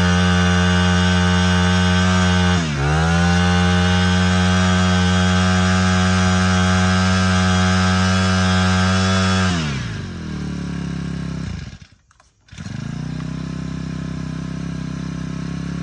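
Honda GX25 25cc four-stroke engine on a brush cutter running at high throttle, dipping briefly and picking up again about three seconds in. The throttle is released about ten seconds in and the engine falls to a steady idle, with a brief drop-out around twelve seconds.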